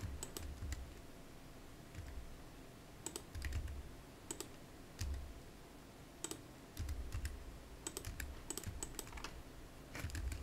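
Faint computer keyboard keys and mouse buttons clicking in irregular bursts as shortcuts are entered and the mouse is used, with dull low thuds on the desk between the clicks.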